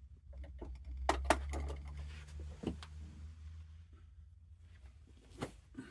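Quiet handling sounds as a cone of thread is set onto the spool pin of a coverstitch machine and the thread is drawn up to the guide: a few sharp clicks about a second in, then occasional single taps.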